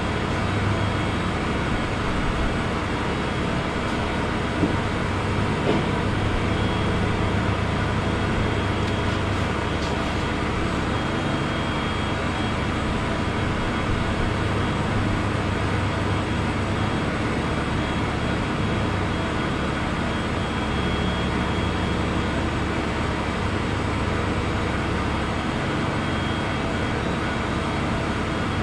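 An engine running steadily at a constant speed, with an even low hum and no changes.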